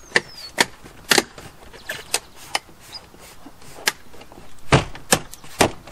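Lippert Thin Shade snap-in window frame being pushed home into the door of a travel trailer, its clips catching: an irregular string of about ten sharp clicks and knocks, the heaviest and deepest coming near the end.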